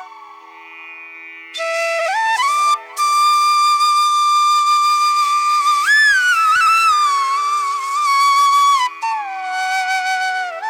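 Background music: a solo melody of long held notes that bend and slide in pitch, starting about a second and a half in.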